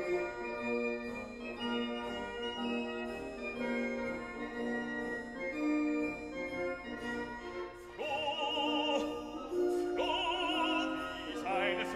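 Background music: sustained keyboard chords, joined about eight seconds in by an operatic singing voice with wide vibrato.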